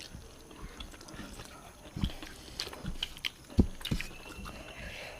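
Mouth and eating sounds of a meal of rice and fish curry: chewing with scattered short clicks and knocks, the sharpest about three and a half seconds in.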